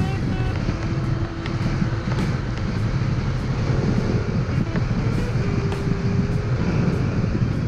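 Wind buffeting the microphone over the engine and road noise of a Yamaha NMax scooter cruising steadily at about 55–60 km/h. A faint held tone comes and goes twice.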